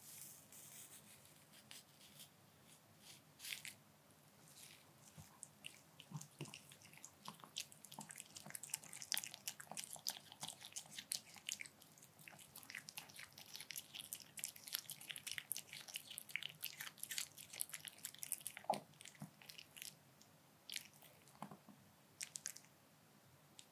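A white Pomeranian chewing dog-safe napa cabbage kimchi: many quick, wet, crunchy clicks of biting and chewing, thickest in the middle stretch, with one louder smack about three-quarters of the way through.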